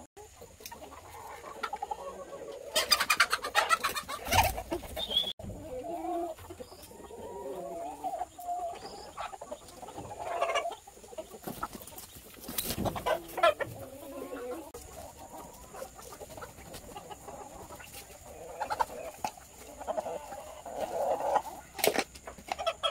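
A flock of free-range chickens, Buff Orpingtons among them, clucking on and off, with a few sharp knocks or rustles standing out about three seconds in, about halfway and near the end.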